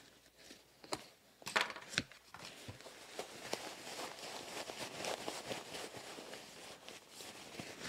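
A few sharp snips of scissors, then soft, uneven rustling of a thin running jacket's fabric as it is stuffed into its own pocket.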